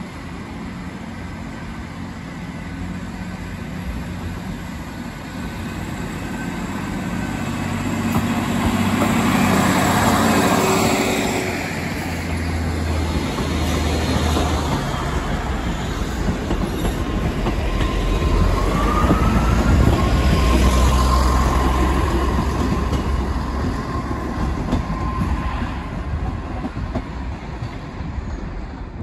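A diesel multiple unit passes close by at low speed, its underfloor diesel engines rumbling as it nears and goes by, with the wheels running over the rails. About two-thirds of the way through, a wheel flange squeals on the curved track, rising in pitch and then holding for several seconds.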